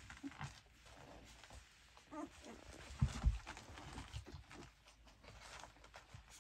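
Week-old Bohemian Shepherd puppies stirring on a blanket, with rustling, small ticks and a brief squeak about two seconds in. Two low thumps follow just after three seconds.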